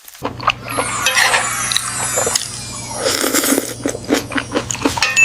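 Rapid crunching and clicking over a steady low hum.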